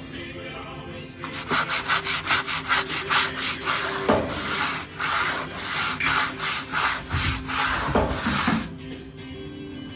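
Fast back-and-forth rubbing strokes on a rough surface, about three a second, starting about a second in and stopping near the end.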